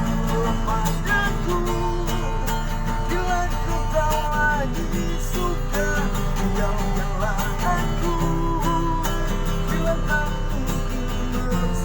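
A street busker singing to a strummed acoustic guitar.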